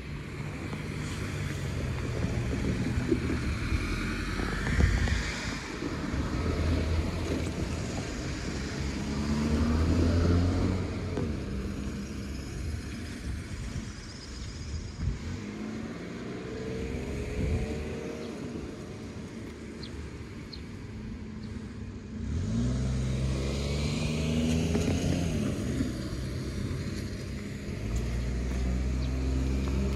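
Road traffic: motor vehicles passing and pulling away, their engine pitch rising several times as they accelerate.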